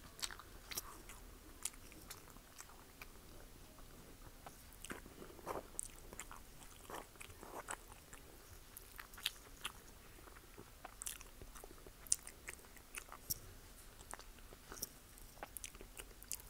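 Chewing instant noodles close to the microphone, with irregular short mouth clicks and smacks.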